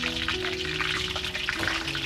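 Soft background music with slow, held notes, over faint wet clicks of a metal spoon stirring sugar and lime juice into a bowl of mashed fermented fish.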